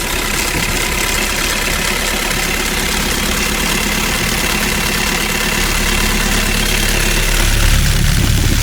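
Small engine of a home-built mini tractor running steadily, its low note growing stronger about seven and a half seconds in.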